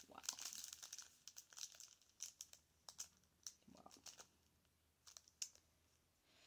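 Clear plastic sleeves on a set of eye makeup brushes crinkling faintly as they are handled. The crinkling is densest in the first second, then thins to scattered clicks and crackles that stop about five seconds in.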